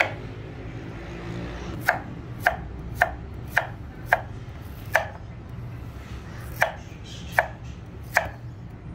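Chef's knife slicing a carrot into rounds on a wooden cutting board: about nine sharp knocks of the blade on the board, roughly one every half second, starting about two seconds in, with a pause of about a second and a half in the middle.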